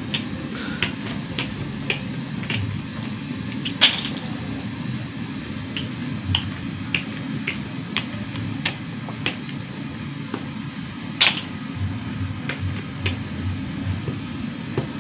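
Light plastic clicks and taps as oyster mushroom baglogs, sawdust-filled plastic bags with plastic neck rings, are handled one after another, with two sharper clicks about four and eleven seconds in. A steady low hum runs underneath.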